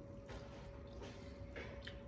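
Faint wet squishing with a few short smacks and clicks as noodles in broth are lifted by hand and eaten.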